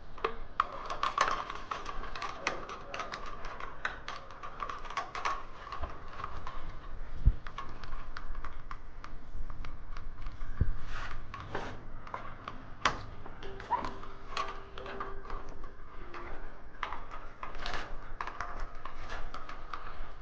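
Irregular small clicks and taps of hands working wire, pliers and wire nuts while making up an electrical box.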